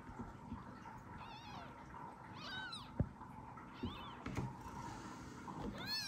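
A newborn kitten mewing, calling for its mother: four short, high-pitched cries that rise and fall in pitch, the last near the end. A sharp thump about halfway through.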